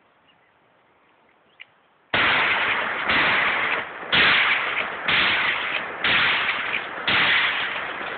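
Shotgun blasts fired in quick succession: six shots about a second apart, starting about two seconds in, each trailing into the next.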